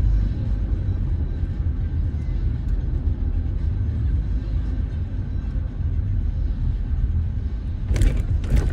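Vehicle travelling on a toll road: a steady low rumble of road and engine noise, with two short rushes of noise near the end.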